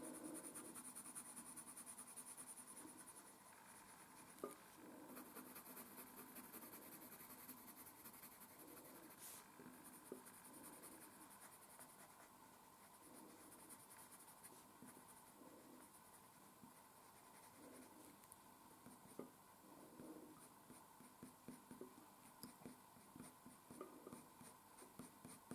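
Faint scratching of a dark blue coloured pencil on paper, laid down as a run of short, repeated shading strokes.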